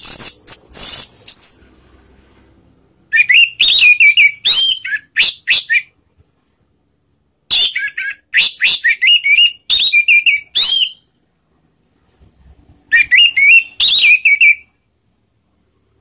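Orange-headed thrush (anis merah) singing: four phrases of quick whistled notes and high, sharp notes, each one to three seconds long, with short pauses between them.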